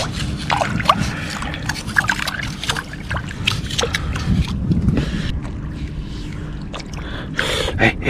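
Shallow seawater being stirred by long scissors: a run of small splashes, drips and clicks.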